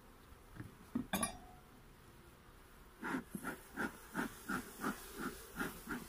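A couple of sharp clicks from a hive tool against the wooden hive frames about a second in. From about halfway, a bee smoker's bellows is pumped in a quick, even run of about ten puffs, roughly three a second.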